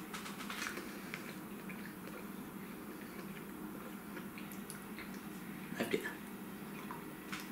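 Faint chewing and mouth sounds from eating a piece of dark chocolate, with scattered small clicks and a short cluster of them about six seconds in, over a steady low room hum.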